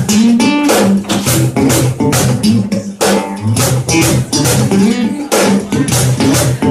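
Acoustic guitar strummed in a steady rhythm, about two strokes a second, over ringing low bass notes.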